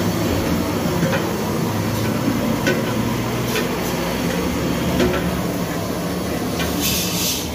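Steady roar of an LPG gas burner under a large aluminium cooking pot, with a few light clinks as a ladle stirs the pot and a brief hiss near the end.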